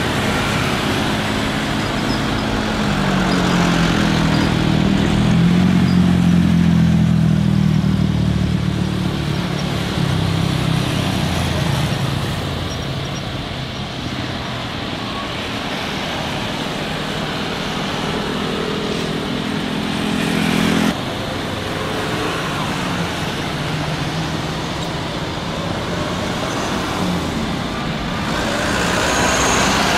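Garuda Indonesia Airbus A330's jet engines running at low thrust while it taxis: a steady engine hum and rush. A low tone rises in pitch and swells a few seconds in, then fades. A lesser hum cuts off abruptly about 21 seconds in.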